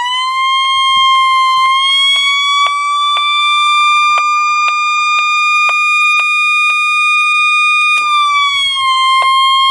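Realistic 12140 weather radio's alert siren sounding in a test: an extremely loud, steady, shrill electronic tone with faint regular clicks about twice a second. The tone drops slightly in pitch about eight seconds in.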